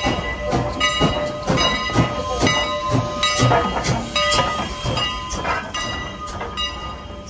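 Locomotive bell ringing steadily, about two strokes a second, over the low rumble and hiss of a train; it grows a little quieter near the end.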